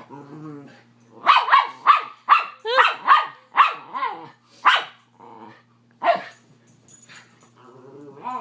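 Miniature schnauzer making her odd whining, yelping bark-sounds in play, provoked by hands hidden under a blanket. They come as a quick run of about a dozen short pitched calls, then one more a second later.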